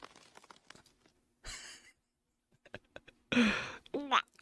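A person's voice: a short breathy exhale, then a louder breathy sigh-like sound that ends in a quick rising and falling squeak of pitch.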